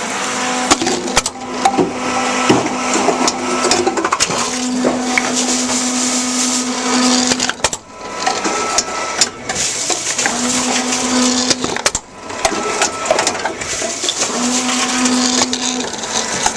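Tomra reverse vending machine taking in plastic bottles. Its motor hums in several runs of one and a half to three and a half seconds as the bottles are spun and carried in, with plastic clattering and knocking throughout.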